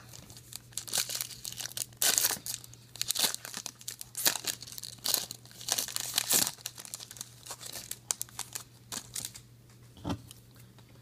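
Trading card pack wrapper being torn open and crinkled by hand, in irregular crackling rustles that die down near the end.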